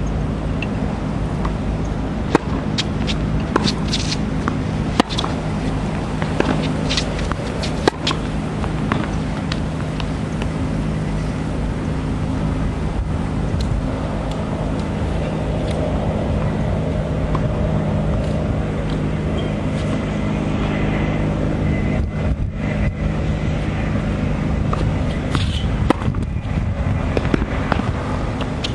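Steady low mechanical hum, with scattered sharp clicks and cracks on top.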